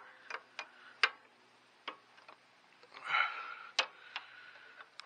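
Scattered, irregular light metallic clicks and taps of hands and a wrench working the travel control linkage's threaded rod end and jam nut. A brief rustle comes about three seconds in.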